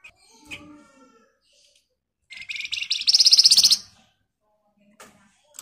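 Caged flamboyan bird, a small brown babbler, giving a loud, very fast rattling trill of tightly packed high notes for about a second and a half, after a few softer calls.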